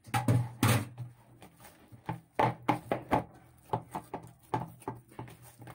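A hand kneading and pressing dough that has just had a spoon of oil added, in a ceramic bowl: an irregular run of short slaps and squelches, several a second, loudest at the start.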